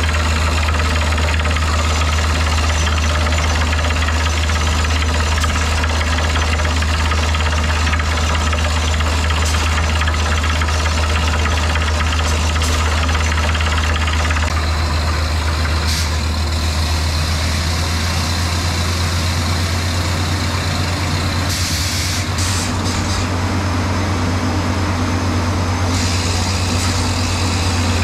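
Borewell drilling rig running steadily under load as it drills, its rotary head turning the drill rod in the hole, a loud continuous machine drone with a knocking rattle.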